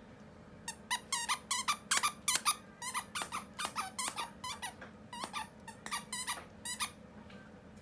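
Squeaker inside a plush Lamb Chop dog toy squeaking repeatedly as a puppy chews and bites it: a rapid run of short squeaks, several a second, starting just under a second in and stopping about a second before the end.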